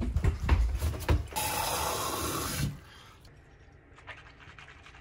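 A few low knocks and bumps, then about a second and a half of steady rushing water as a cup is filled for a morning gargle, cutting off sharply, followed by a quiet stretch with faint swishing of water in the mouth.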